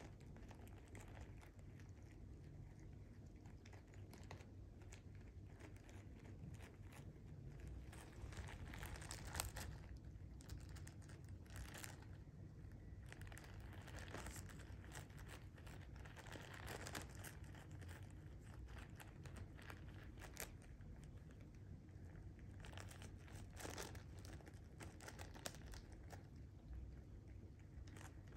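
A torn clear plastic treat bag crinkling and rustling in irregular bursts as a cat paws and bites at it to get the treats out.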